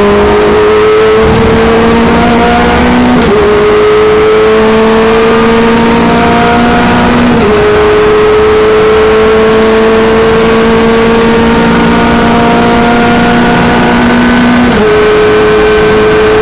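Renault Clio Mk3 Cup race car's four-cylinder engine at full throttle, heard from inside the cabin. The pitch climbs steadily through each gear, with three upshifts, each a sudden drop in pitch, about three, seven and fifteen seconds in.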